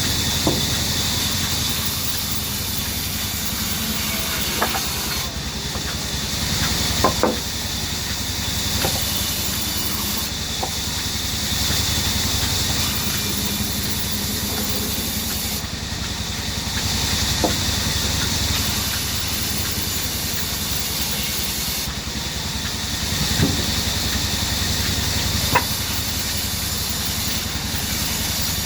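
Band saw running steadily, a continuous hiss over a low machine hum, with a few sharp knocks scattered through it.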